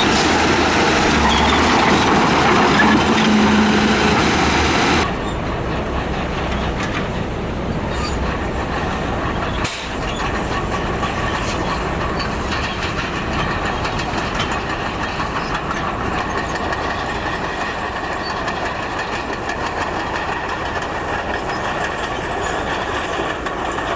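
Heavy diesel construction machinery working. The sound changes abruptly about five seconds in to a quieter, steadier machine noise with a faint high whine.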